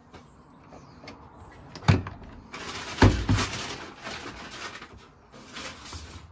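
Zanussi front-loading washing machine door being opened: a sharp click, then a heavier clunk about a second later as the latch lets go and the door is pulled open. Rustling and handling noise follows.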